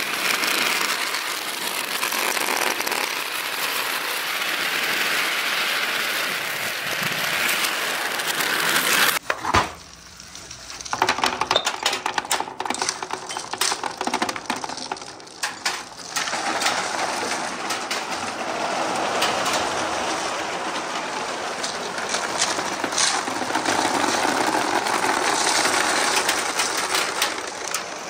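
Hundreds of glass marbles rolling and clattering down wooden pegboard slopes in a dense, steady rattle. About a third of the way in it briefly drops off, then comes back as separate sharp clacks for several seconds before building again to a dense rattle.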